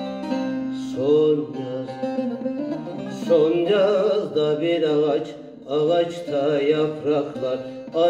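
Two bağlamas (long-necked Turkish saz) playing an instrumental passage of a Turkish folk song, a melody picked with the plectrum over ringing strings; a new, louder phrase starts about a second in.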